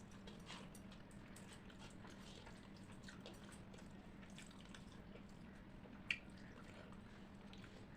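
Faint wet chewing and mouth sounds of someone eating rice with curry, with scattered small clicks and one sharper click about six seconds in, over a faint steady hum.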